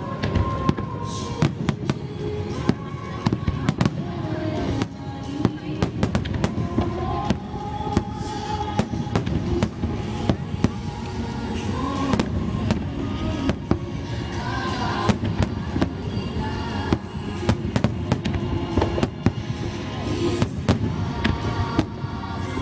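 Fireworks bursting in quick, irregular succession, many sharp bangs and crackles, with music playing underneath.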